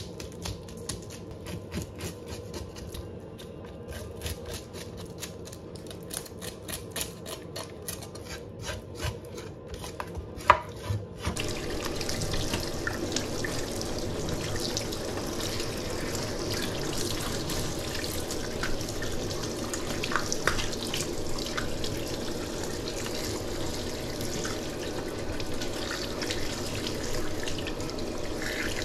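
Quick, repeated knife strokes on fish, a few a second, with one sharp knock near the end of them. About eleven seconds in, a tap starts running steadily into a sink, with the fish being cleaned under it.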